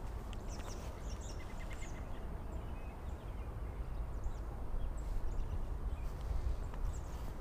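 Outdoor riverbank ambience: a steady low rumble, with small birds chirping in short, high calls now and then.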